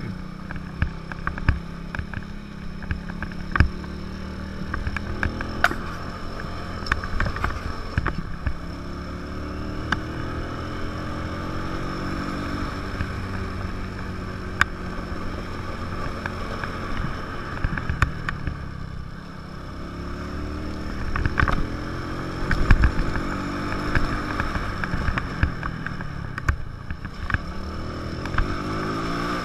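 150 cc motorcycle engine heard from the rider's seat, its pitch rising and falling several times as it accelerates and changes gear on a climb, with wind on the microphone and occasional sharp knocks.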